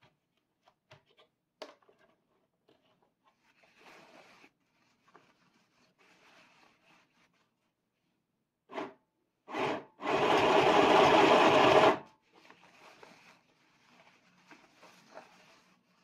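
Compact electric sewing machine (FHSM-505B) sewing through denim: two short blips of the motor, then a steady run of about two seconds. Faint rustling of the fabric being handled before and after.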